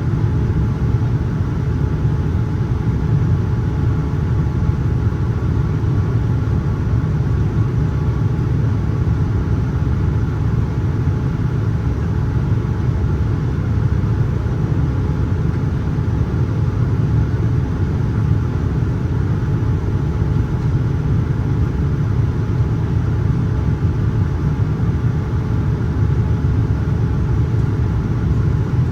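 Steady low cabin rumble of a Boeing 787-9 airliner in flight, engine and airflow noise heard from inside the passenger cabin, with a few faint steady tones above it.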